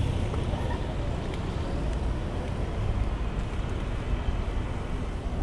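Wind noise on the microphone of a camera on a moving bicycle, a steady low rush over city street noise.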